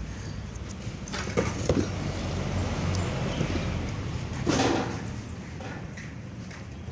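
A cardboard shipping box and the hedge trimmer inside it being handled: two sharp knocks about a second and a half in, then a louder rustling scrape past the middle. A steady low hum runs underneath.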